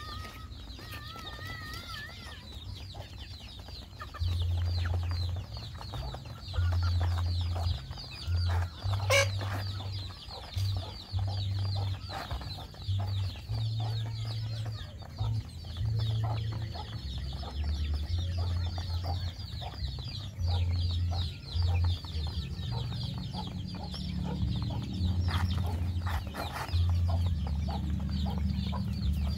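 A flock of chickens feeding, hens clucking and chicks peeping with high, falling calls repeated over and over. A low rumbling comes and goes over them and is the loudest sound.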